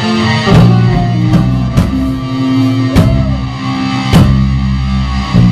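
Live rock band playing with keyboard and drum kit, sustained chords over heavy drum hits a little over a second apart.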